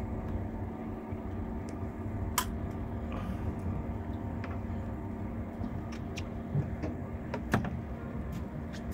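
An engine running steadily with a low hum, with a few sharp knocks about two and a half and seven and a half seconds in.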